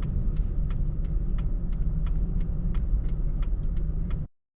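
Gusting blizzard wind buffeting a stopped car with a heavy low rumble. Irregular light ticks of wind-blown snow strike the car. The sound cuts off abruptly near the end.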